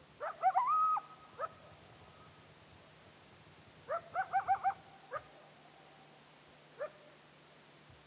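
Short, high-pitched animal calls: a cluster of rising calls near the start, a quick run of about five notes about four seconds in, and single calls in between.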